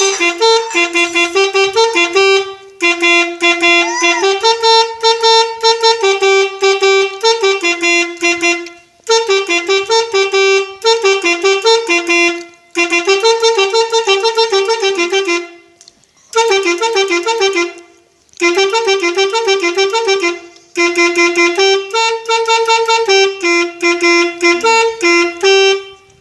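Telolet multi-tone melody horn playing a quick, loud tune of rapidly switching notes, in several phrases separated by short pauses.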